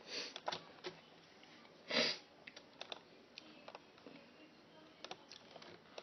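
Sparse computer keyboard and mouse clicks, a few at a time and irregularly spaced, with a short louder breathy rush about two seconds in.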